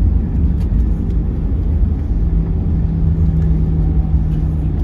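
Low rumble heard inside the cabin of an Airbus A320-200 during the landing rollout, as the airliner runs along the runway with its ground spoilers raised. A steady hum joins the rumble about two seconds in.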